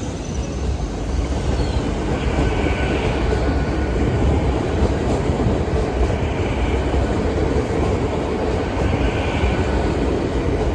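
Train running along the rails past the level crossing, a steady rumble of wheels on track.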